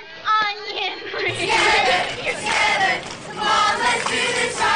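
A crowd of people shouting together in loud, repeated bursts, after a brief snatch of a young voice at the start.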